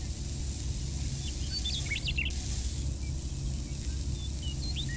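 A steady low machine hum, with two short runs of faint high bird chirps.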